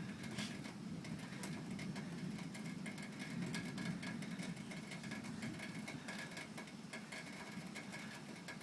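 Outdoor storm ambience: a steady low hum with scattered faint ticks of light rain beginning to fall, and a faint high pulsing tone throughout. No thunder.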